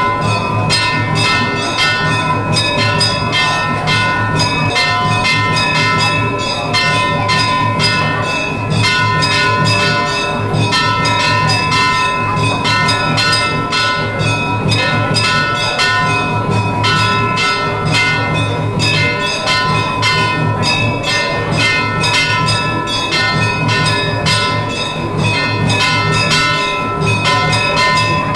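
Temple bells ringing without pause during a Hindu abhishekam worship: a fast, steady clanging of many strikes over a lingering ringing tone.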